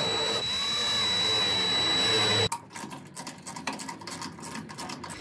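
Cordless drill running steadily, its motor pitch wavering up and down as it drives a fastener on a steel leveling foot, stopping abruptly about halfway through. Then a ratchet wrench clicks rapidly as a bolt is tightened.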